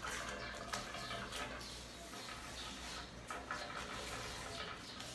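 Faint rustling of parchment paper and a few light taps as hands handle a baked sponge cake sheet, over a steady low hum.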